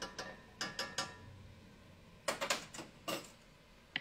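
Quick clicks and clinks of a metal measuring spoon against an enamelled cast-iron pot as harissa paste is spooned in, coming in short runs about half a second in and again past the two-second mark.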